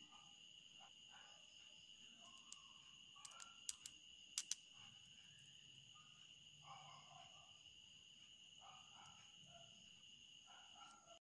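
Near silence with a faint steady high-pitched drone, and a few small sharp clicks near the middle as fingers handle the tiny screw and mini cutting disc.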